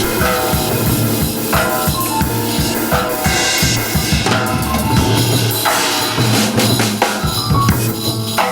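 Band music led by a busy drum kit, with kick and snare hits over a bass line and sustained pitched instruments.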